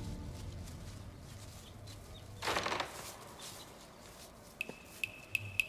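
A rustle of dry brush and twigs from someone moving through undergrowth, loudest about two and a half seconds in, over a low steady hum. Near the end a high, steady chirring with regular ticks begins.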